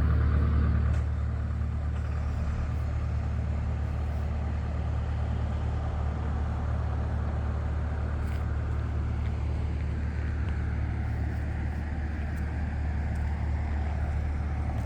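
A motor vehicle's engine running steadily with a low hum. It gets slightly quieter about a second in.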